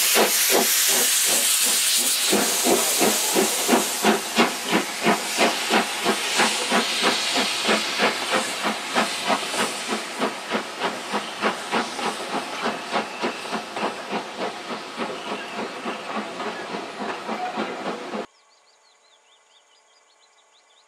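LMS Black 5 steam locomotive working a train away, with a loud hiss of steam and a steady, rhythmic exhaust beat of about two to three chuffs a second that gradually fades as it moves off. Near the end the sound cuts off abruptly to a faint outdoor background.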